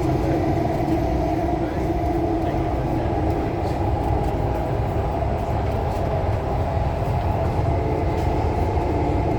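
Thomson-East Coast Line metro train running steadily between stations, heard from inside the carriage: a constant low rumble of wheels on rail.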